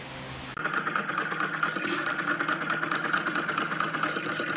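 A vintage stationary hit-and-miss gas engine running with a steady mechanical clatter, coming in suddenly about half a second in after a moment of quiet room tone.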